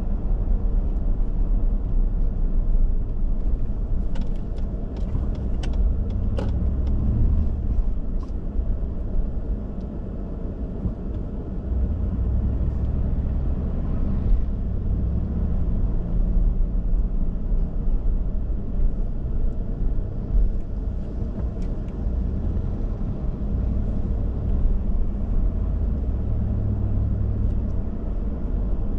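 Car being driven through city traffic: a steady low rumble of engine and road noise, with a scatter of short sharp clicks between about four and eight seconds in.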